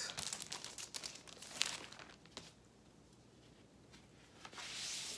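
Crinkling of vinyl record albums' plastic outer sleeves as LPs are handled and swapped. A few light taps come in the first couple of seconds, then a longer rustle near the end.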